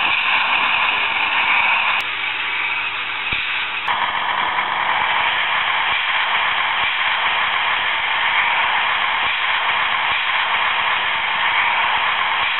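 Sound module of a Viessmann HO-scale Strukton track tamping machine model playing its working machine sound: a steady, noisy rush through a small speaker. It is briefly replaced by a quieter hum, with a sharp click at each end, about two to four seconds in.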